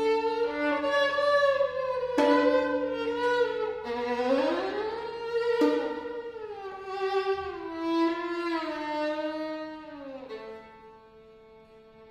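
Two violins playing a duet: long bowed notes that slide in pitch, with a rising slide about four seconds in and sharp bow attacks around two and five and a half seconds. Near the end the playing drops to softer held notes after a falling slide.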